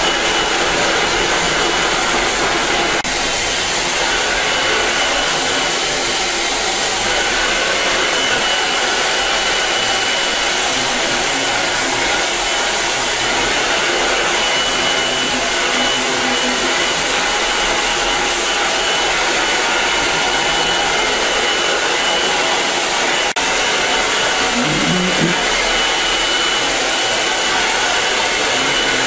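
Handheld hair dryer blowing steadily, a constant rush of air with a thin high whine in it, switched on right at the start.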